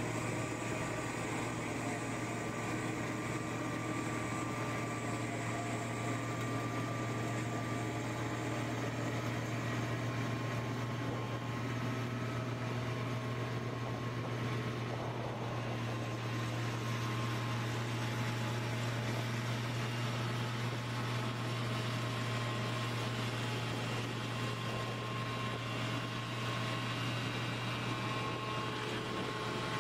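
Large rotary snow blower truck running steadily as it cuts through deep snow: a constant low engine drone under an even rushing noise.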